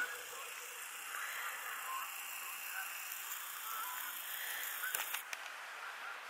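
A flock of geese flying past, honking faintly and sporadically over a steady background hiss, with a few sharp clicks about five seconds in.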